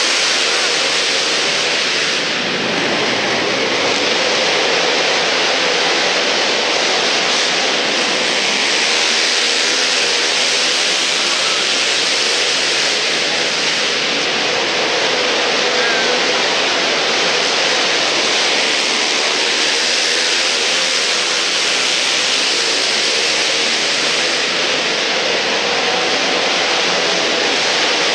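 Several sport quad ATV engines racing together, revving up and down, heard as a steady, loud mix of engine noise in an indoor arena.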